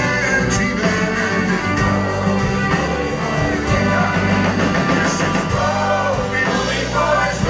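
Live band playing a rousing sea shanty: a male lead voice sings over strummed acoustic guitar and drums.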